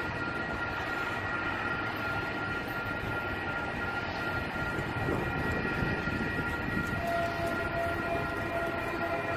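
Freight train running by: a steady rumble with several steady high-pitched tones held over it, and a lower tone joining about seven seconds in.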